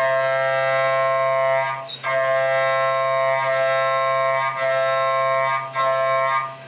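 Kennametal KOR 5 one-inch end mill roughing an aluminium block on a Doosan DNM 5700L vertical mill: a loud, steady high-pitched whine of several pitches at once, over a low machine hum. The whine drops out briefly about two seconds in and twice more near the end, as the cutter leaves and re-enters the cut.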